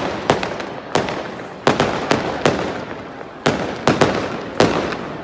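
Aerial fireworks display: about ten sharp shell bursts in quick succession, each trailing off in echo.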